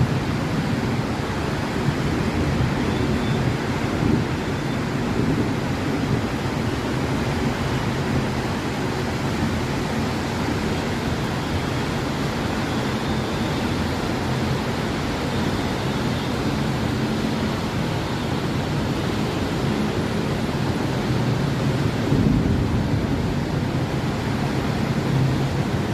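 Heavy rain falling in a steady, even hiss, with a low hum underneath.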